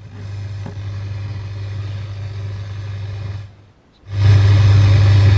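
Static from a 433 MHz radio receiver module played through a small speaker: a steady hiss over a strong low hum, with no transmission being received. This is how noisy the module really is. The noise cuts out for about half a second around three and a half seconds in, then comes back louder.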